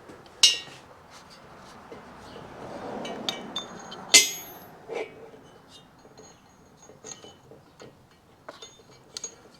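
Metal parts of a clamping setup clinking and knocking as they are handled and positioned on a motorcycle cylinder. There are two sharper clanks, about half a second in and about four seconds in, scattered lighter clinks with a brief metallic ring, and a soft scraping between them.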